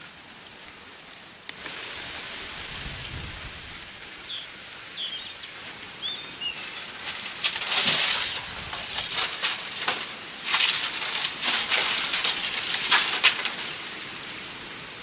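Small birds chirping in the background, then from about halfway in a stretch of close, loud rustling and crackling.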